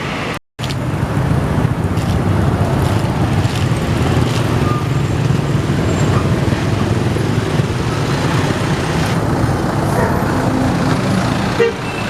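Steady rumble of heavy road vehicles, bus engines and road noise, with a brief cut to silence about half a second in.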